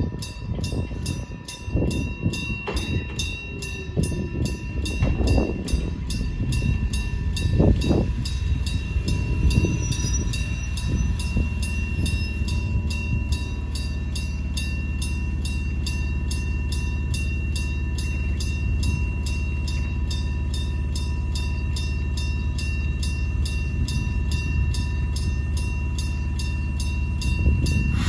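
Japanese level-crossing electromechanical bell (denrei) ringing with rapid, even strokes. Under it a train passes over the crossing: an uneven low rumble that settles into a steady hum about halfway through.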